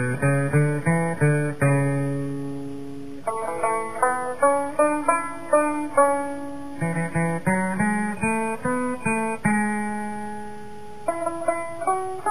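Banjo music: phrases of quickly plucked notes, each one struck sharply and ringing away, broken about three seconds in and again near the end by single notes left to ring.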